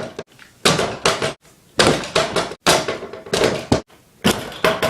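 A basketball bouncing hard indoors: a run of sharp, irregularly spaced thuds, roughly two a second.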